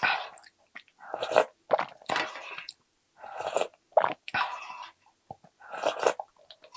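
Eating sounds: spoonfuls of rice soaked in beef-bone ramen broth slurped from a wooden spoon and chewed, in a string of short, separate bursts.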